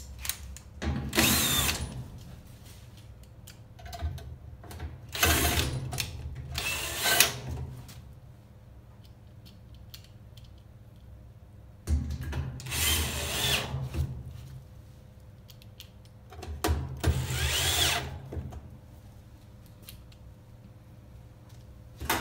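Cordless drill/driver driving screws into the sheet-metal back panel of a top-load washing machine, in about six short runs of one to two seconds each with pauses between.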